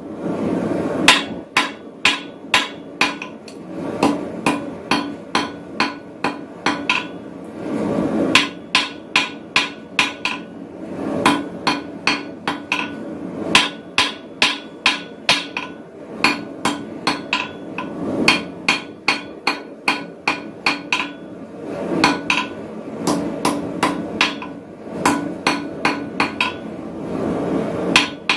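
Blacksmith's hand hammer striking a red-hot steel bar on a steel-plate anvil, forging a set down in the stock. The blows come about three a second, in runs of several seconds broken by brief pauses.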